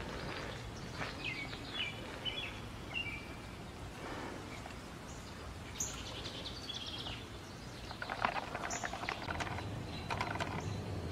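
Garden ambience with birds chirping now and then, short high chirps over a steady low background. A run of quick soft clicks and crackles comes in the second half.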